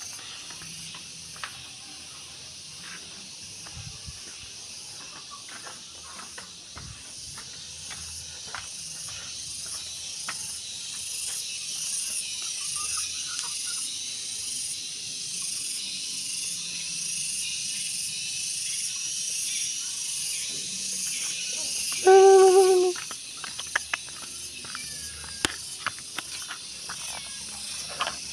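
Insects, likely crickets, drone steadily in a high hiss that slowly grows louder, with scattered light clicks. About three quarters of the way through, a cat gives one loud meow lasting about a second.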